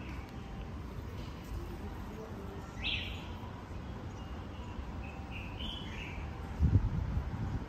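Small birds chirping a few short high calls, one rising call about three seconds in and two more near six seconds, over a steady low street hum. A brief low thump near the end is the loudest sound.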